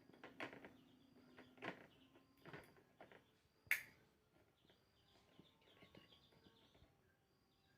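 Near silence broken by a few faint clicks and knocks, the sharpest about halfway through, with faint bird chirps in the background.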